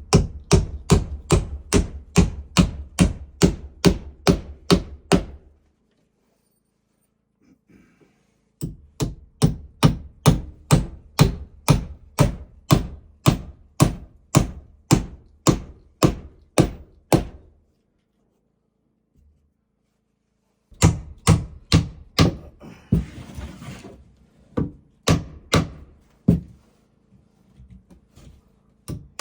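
A hammer driving nails into wooden framing: three runs of steady, evenly paced blows, about two to three a second, separated by silent gaps. A short hiss comes about two-thirds of the way in.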